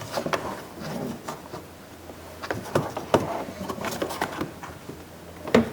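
Scattered light clicks, knocks and rubbing from hands working behind a loosened car door panel, feeling for the clip on the door latch rod.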